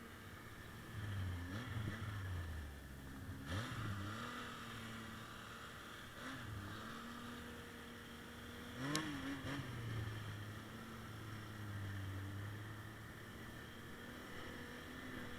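Arctic Cat M 7000 snowmobile engine running, its pitch rising and falling with short throttle changes; the sharpest comes about nine seconds in, with a click.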